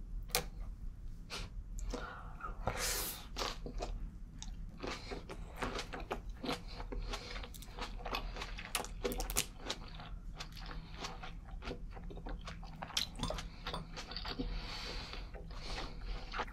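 Close-miked chewing of green grapes, picked off the stem and eaten with cured ham: wet, juicy crunches with many crackles and clicks.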